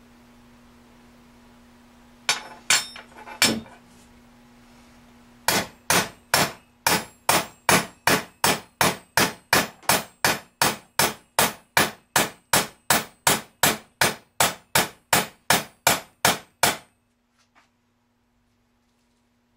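A metal rock slider for a scale RC crawler banged hard against a metal plate as a stress test: three sharp knocks about two seconds in, then a steady run of ringing metallic strikes at about two and a half a second that stops short near the end.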